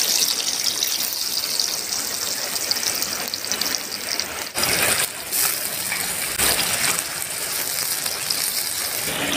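Chopped chillies, shallots and spring onion sizzling as they stir-fry in a hot wok over a wood fire, a steady loud hiss, with a few short knocks about halfway through.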